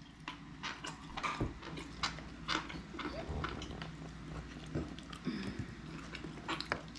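Someone chewing and eating barbecued pork, with irregular small clicks and mouth smacks.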